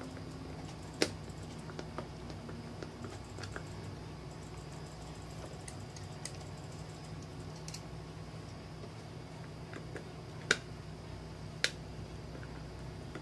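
Sharp plastic clicks from a PVC junction box cover being fitted and closed: one loud click about a second in, a few small ticks, then two loud clicks near the end, over a steady low hum.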